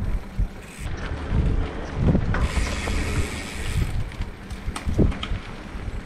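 Mountain bike riding over a dirt singletrack: tyre rumble with frequent knocks and rattles from bumps, and wind on the microphone. A hissing rush from about two and a half to four seconds in.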